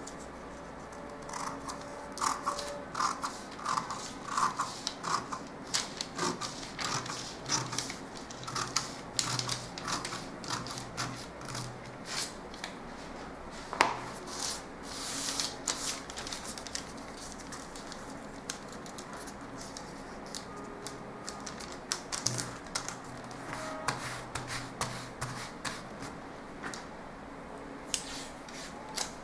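Scissors cutting through brown pattern paper in irregular short snips, with paper rustling and crinkling as the cut pieces are spread apart.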